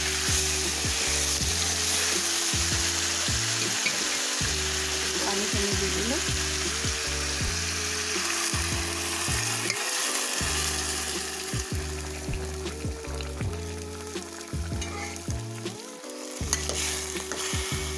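Jackfruit pieces in a hot karahi with mustard oil and spices, sizzling while stirred with a spoon, just after water has been poured in. The sizzle thins out in the later part.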